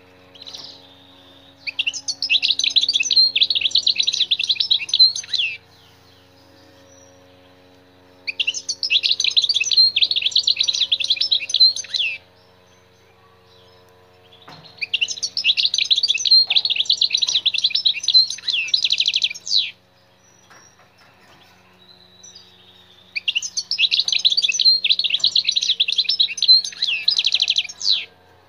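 European goldfinch singing in four bouts of rapid, high twittering, each about four to five seconds long, with short pauses between.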